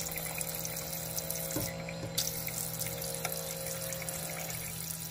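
Tap water spraying steadily from a pull-down faucet's spray head into a bamboo vessel sink, with a steady low hum underneath.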